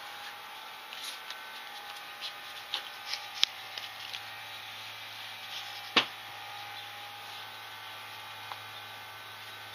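Close handling noise from gloved hands and the camera: scattered light clicks and taps, then one sharp knock about six seconds in, over a steady electrical hum.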